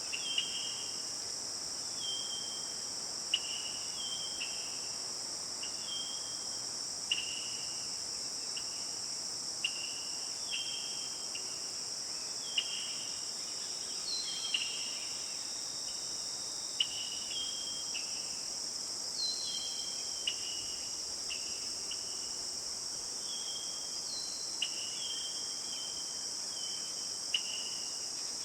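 A steady, high-pitched chorus of insects such as crickets runs throughout. Over it come short, high chirps from another animal, roughly one every second or so.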